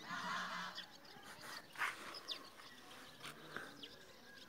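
Animal calls, with a few short, high bird chirps.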